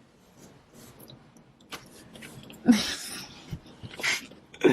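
Soft rustling and two short breathy outbursts, like quick exhales or stifled laughs, a little under three seconds in and again about four seconds in.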